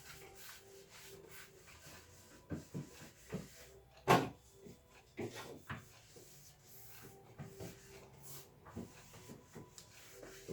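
Items being handled in a fridge: containers, shelves and drawers knocked, shifted and rubbed in a string of irregular knocks and clicks, with one sharp knock about four seconds in.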